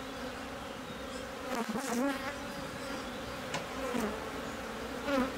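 Honeybee colony buzzing from an opened hive: a steady hum of many bees, with a few single buzzes rising and falling in pitch over it.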